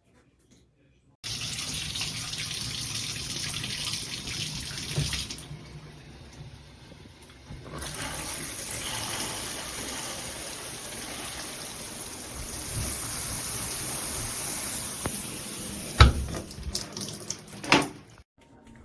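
Water spraying from a handheld shower head. The spray drops back for about two seconds a few seconds in, then runs again. A sharp knock comes near the end, just before the spray stops.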